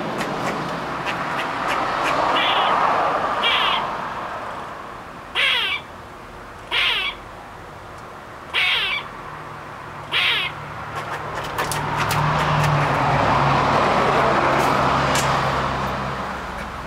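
Black squirrel giving a series of six short alarm calls, about one every second and a half.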